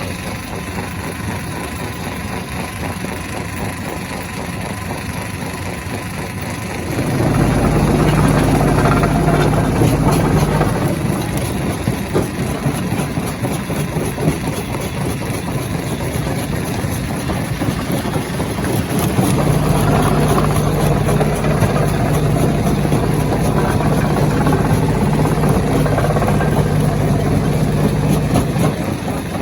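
Stone crusher machinery running steadily. Twice it grows louder and deeper with a strong low hum, from about 7 to 11 seconds and again from about 19 to 28 seconds, as the machine comes under heavier load.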